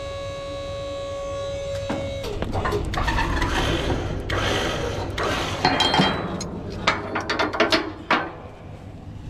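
The roll-off truck's winch cable hook is worked free of the dumpster's pull eye, giving metal clanking and rattling with several sharp clinks. Under it runs a steady hum with a held tone that stops about two seconds in.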